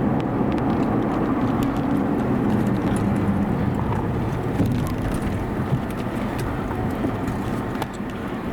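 Steady rumble of a vehicle driving, heard from inside the cabin, with scattered light ticks throughout.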